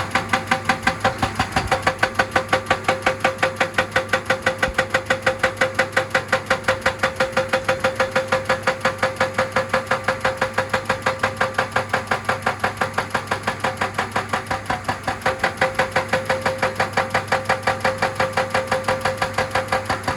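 Excavator-mounted hydraulic breaker hammering rock in a rapid, even rhythm of several blows a second, over the steady running of the excavator's diesel engine.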